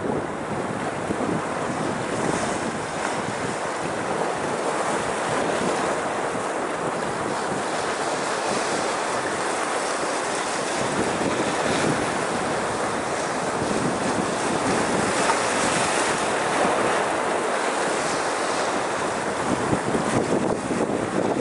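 Small sea waves washing and swirling over shoreline rocks, a steady wash of surf, with wind on the microphone. The surf grows a little louder near the end.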